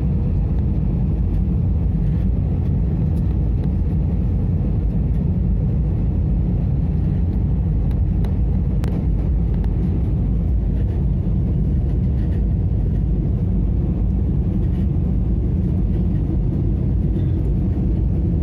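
Steady, loud rumble of an airliner's engines and airflow heard from inside the passenger cabin as the plane comes in to land.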